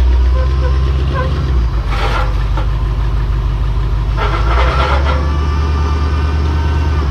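A vehicle engine running at low speed, a steady low drone that shifts slightly in pitch. Short bursts of noise come about two seconds in and again around four to five seconds in.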